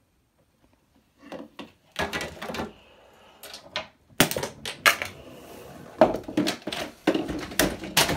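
Irregular clattering and knocking of small objects moving through a homemade Rube Goldberg machine built from cardboard tubes, ramps and toy parts. The clatter starts about two seconds in and comes in quick runs of sharp clicks and knocks.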